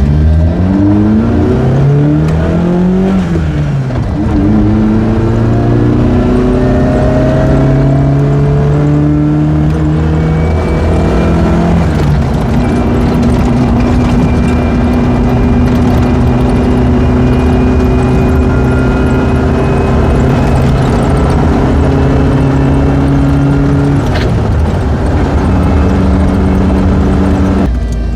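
Suzuki Sierra engine pulling away and accelerating through the gears: its pitch rises, drops at a gear change about three seconds in, climbs again, then holds steady at cruising speed, with another change in the engine note near the end.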